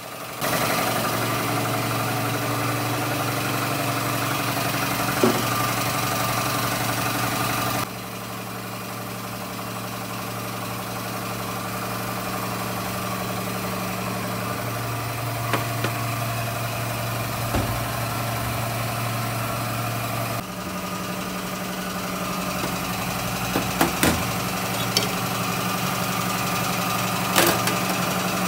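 Peugeot 206 1.4 diesel engine idling steadily, with a few sharp clicks. The level drops suddenly about eight seconds in and changes again about twenty seconds in.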